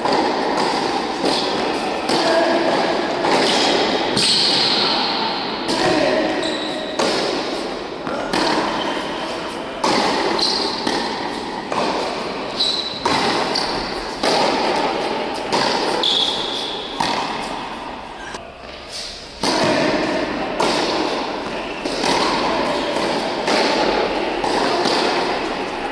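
Tennis balls being hit by rackets and bouncing on an indoor hard court during a rally, about one hit a second, each echoing in a large hall. A few short high squeaks sound between the hits.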